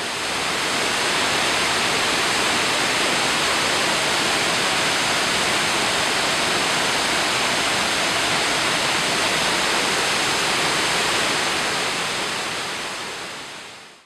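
Waterfall rushing: a steady, dense sound of falling and churning water. It fades in over the first second and fades out over the last few seconds.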